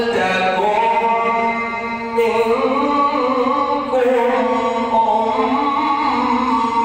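A man's voice reciting the Quran in melodic tajweed style, drawing out long held notes that glide gently in pitch.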